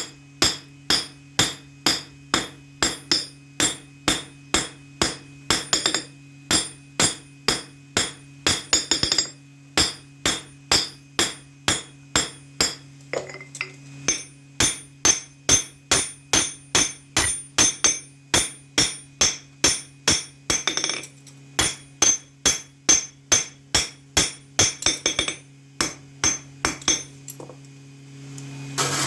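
Blacksmith's hammer striking steel on an anvil while forging a knife blade, about two to three ringing blows a second in runs with brief pauses. A steady low hum runs underneath.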